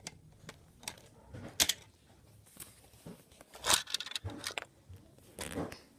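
Lego plastic pieces being handled and pressed together, a roof plate fitted onto the car: several sharp clicks and short rattles, the loudest about one and a half seconds in and again near four seconds.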